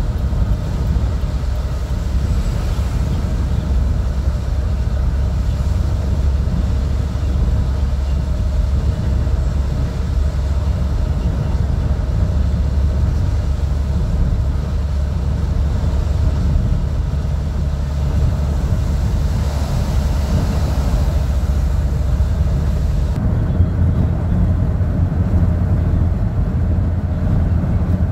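Road noise inside a car driving on a wet highway: a steady low rumble of tyres and engine under a faint hiss. The hiss swells briefly about twenty seconds in, then drops off suddenly a few seconds later.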